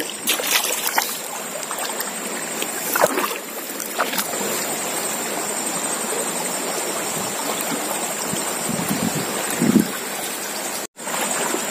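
River water rushing and gurgling steadily past the bank, with a few sharp clicks and knocks in the first seconds and a thin steady high whine above the water. The sound cuts out briefly near the end.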